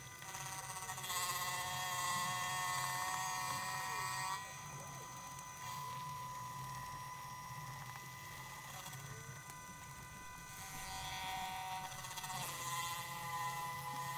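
Sped-up sound of a milling machine taking a finishing cut in POM plastic: the spindle and cutting noise become a steady high buzzing drone over a low hum, its tones shifting every few seconds as the passes change.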